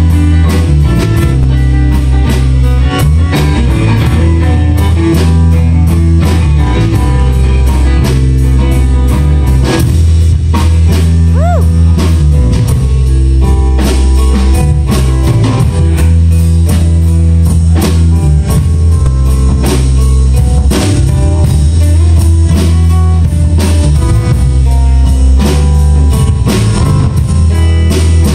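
A live band playing loudly: electric guitar over electric bass and a drum kit keeping a steady beat.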